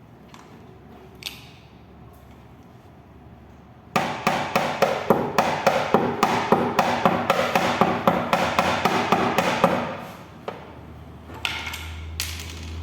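Hammer blows on metal while a dent is being worked out: a quick, even run of about four strikes a second for some six seconds, with the metal ringing between blows. A few single knocks come before and after the run.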